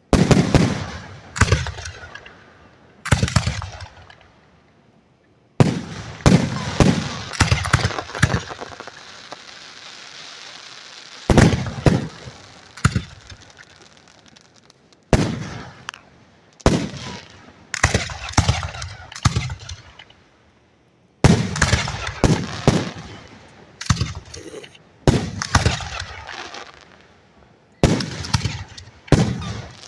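Aerial firework shells bursting directly overhead: a long run of loud booms, some in quick clusters, each dying away. From about six to eleven seconds in there is a stretch of continuous crackle between the booms.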